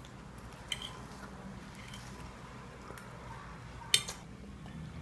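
A fork clinking against a ceramic plate at a table: a few light clicks over a quiet room hum, with one sharper clink about four seconds in.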